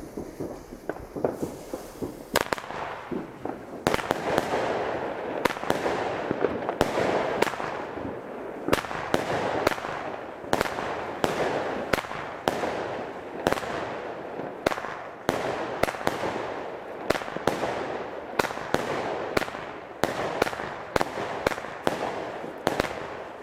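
Argento Goldmarie 25-shot, 20 mm firework cake firing: a long string of launch thumps and aerial bursts, roughly one shot a second, with a constant crackle between the shots. It picks up about two and a half seconds in.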